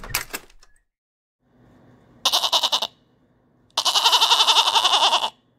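Goat bleating twice: a short bleat about two seconds in, then a longer, wavering one.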